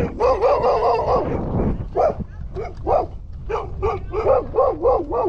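Dog barking: a dense burst of barks at first, then a steady run of short barks about three a second.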